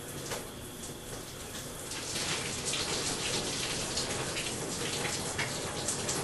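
Shower water running and splattering as a person washes under it, growing louder and brighter about two seconds in, with irregular splashes.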